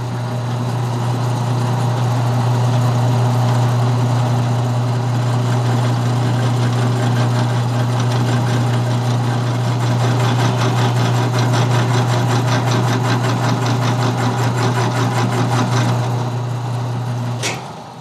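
Drill press running at its lowest speed, its motor giving a steady hum while an old drill bit bores a hole into hard maple. The hum cuts off sharply near the end.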